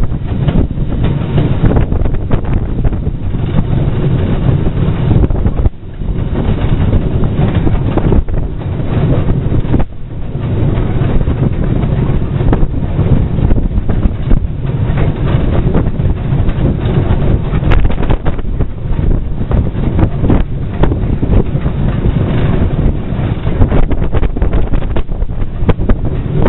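Heavy wind buffeting on the microphone over the running noise of a moving train behind the steam locomotive, LSWR Beattie 2-4-0 well tank 30587. The buffeting eases briefly twice.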